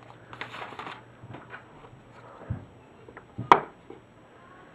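Handling noise as two bushcraft knives are brought together for comparison: a rustle, a dull thump about two and a half seconds in, and a sharp click about three and a half seconds in.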